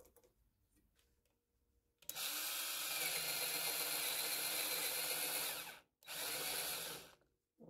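Cordless drill boring into a wood block in two runs: a long one of about three and a half seconds starting about two seconds in, then after a brief stop a second run of about a second. Before it, faint pencil scratching as the block is marked.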